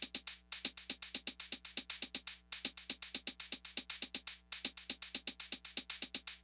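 Outro music: an electronic drum-machine beat of fast, crisp ticks, about eight a second, that breaks off briefly every two seconds.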